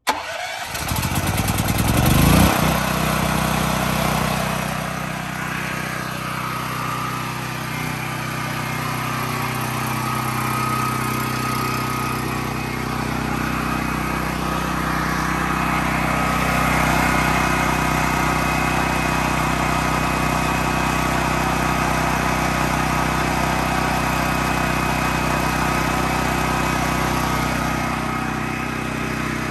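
Westinghouse WGen9500 portable generator's single-cylinder gas engine on a cold first start: it catches and revs up over about two seconds, then runs steadily at its governed speed.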